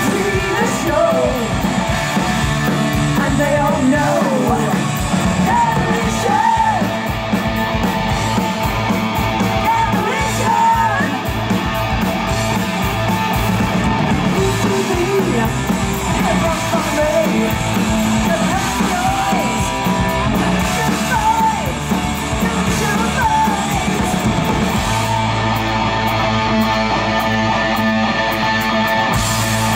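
Live heavy metal band playing loud: distorted electric guitars, bass and drums, with a woman singing over it. About 25 seconds in the low end changes to a steadier riff.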